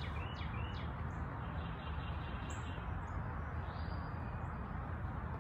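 Small birds chirping: a quick run of short repeated notes at the start and a few brief higher calls later, over a steady background hiss and low rumble.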